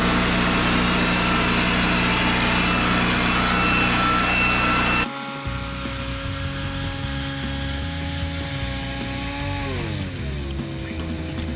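Wood-Mizer LT40 portable band sawmill sawing through timber with a loud, steady running noise that cuts off abruptly about five seconds in. A quieter steady hum follows, its pitch dropping near the end.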